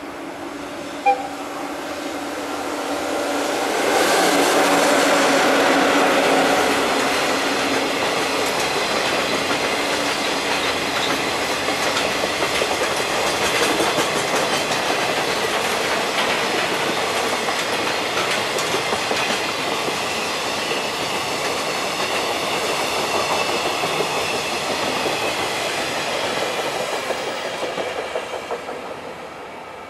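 A JR Freight EF66 100-series electric locomotive passes hauling a long container freight train. Its hum builds to a peak a few seconds in, then the wagons' wheels clatter steadily over the rail joints and fade away near the end. A single short sharp sound comes about a second in.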